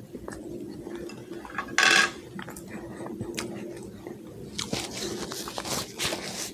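A fork set down on a plate with one brief clatter about two seconds in, then paper napkin rustling from about four and a half seconds on as hands and mouth are wiped.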